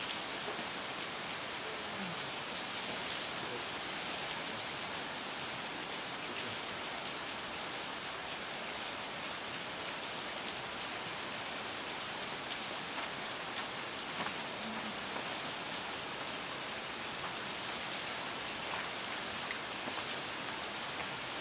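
Steady hiss of falling water from the Schleier waterfall, like rain pattering, with a few faint clicks and one sharper click near the end.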